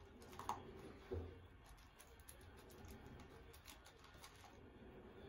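Two Shiba Inus eating from their bowls: faint, scattered crunching and licking with small clicks, and a couple of louder clicks near the start.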